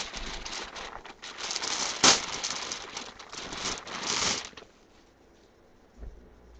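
Packaging crinkling and rustling in irregular bursts as a parcel is opened by hand, loudest about two seconds in and stopping a little after four seconds, followed by a soft thump near the end.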